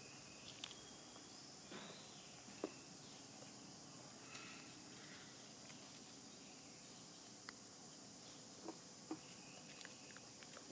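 Faint, steady high-pitched insect drone, with a few soft clicks and rustles scattered through it.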